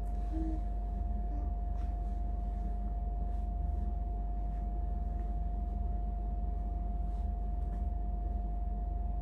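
A steady low hum with a constant faint whine above it, and a few faint soft rustles of clothes being handled.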